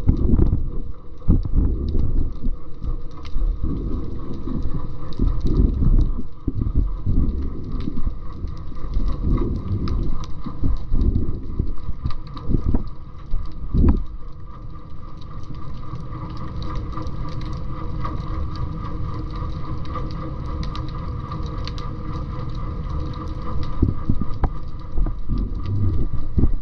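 Underwater sound picked up by a submerged camera: irregular low thuds and rumble of water moving against the camera housing, with a faint steady hum. The thuds thin out for a while in the middle, then return near the end.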